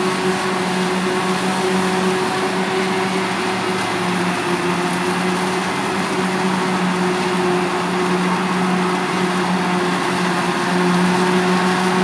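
Krone BiG X 530 self-propelled forage harvester working under load, chopping maize and blowing it out of its spout, with a tractor and trailer running alongside: a steady mechanical hum over a broad, even hiss, getting slightly louder near the end.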